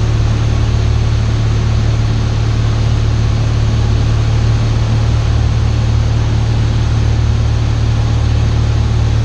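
Cessna 172 engine and propeller running at a steady cruise drone, heard from inside the cabin: a constant low hum with an even noise over it.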